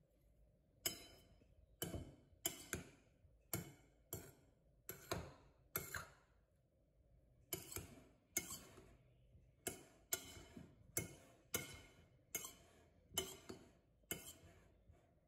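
A metal fork clinking and scraping against a white bowl while couscous is fluffed, in sharp irregular clinks about one or two a second, with a short pause about six seconds in.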